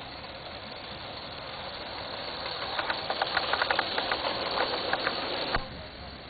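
Live-steam Gauge 1 model steam locomotive hissing steadily as it approaches and getting louder, then a quick, irregular run of sharp clicks, about five a second, as the train passes close. The sound cuts off suddenly near the end.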